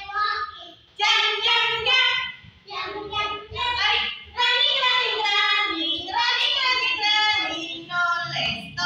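Young children singing a song in high voices, in short phrases with brief pauses between them.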